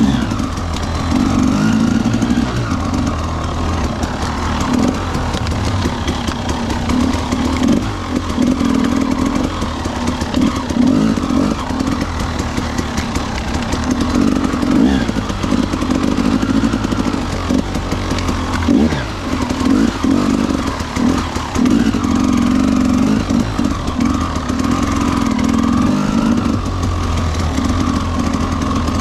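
Husqvarna TE300 300cc carburetted two-stroke enduro bike's engine running under way, heard close up. Its revs rise and fall again and again as the throttle is opened and closed.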